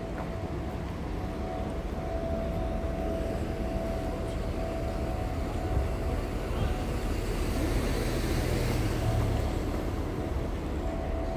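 City street background: a steady low traffic rumble that swells to a louder, hissier pass about two-thirds of the way in, with a thin steady hum coming and going.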